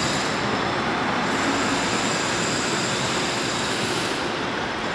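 Steady urban street noise: an even, unbroken wash of traffic and city sound.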